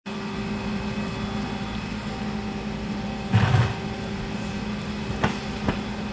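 Steady machine hum with a low thud a little over three seconds in and two light clicks near the end.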